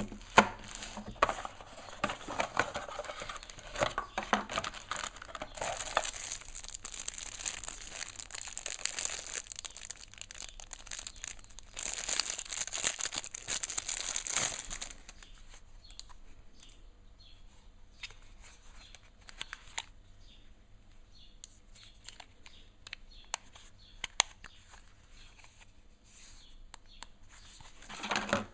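Packaging being handled and unwrapped: crinkling and rustling with scattered clicks and knocks. It is loudest in two stretches in the middle, then eases to lighter handling noises.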